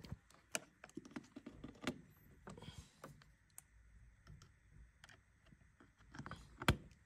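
Faint, irregular light clicks and taps of multimeter test probes against the screw terminals of a plastic wiring junction box, with soft handling noise, while testing the terminals for voltage.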